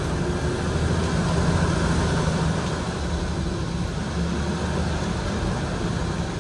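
Tractor's diesel engine running steadily under load as it tows a loaded trailer through deep floodwater, with the steady rush and splash of water against the tractor's front.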